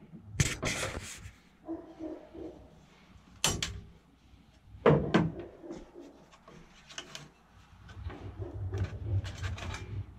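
A short hiss from a spray can near the start, then clicks and knocks of hands working inside a desktop computer's metal case, unlatching and pulling out the graphics card.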